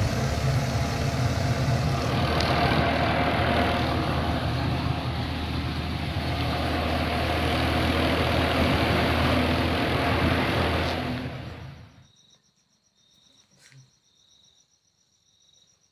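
A farm tractor's engine droning steadily with road noise, heard from inside a car close behind it; it cuts off abruptly about twelve seconds in. Then crickets trill faintly.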